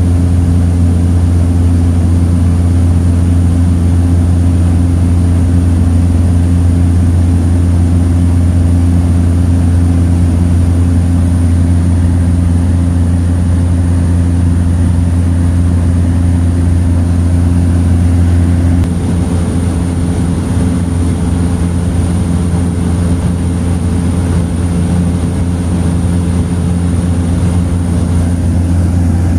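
Bush plane's piston engine and propeller droning steadily in flight, with a steady high whine over a strong low hum. The low drone eases slightly about two-thirds of the way through.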